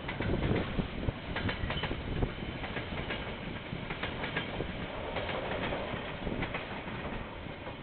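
KiwiRail train rolling past on the line, its wheels clattering and clicking over the rails, heard through a security camera's microphone; the sound fades toward the end as the train moves away.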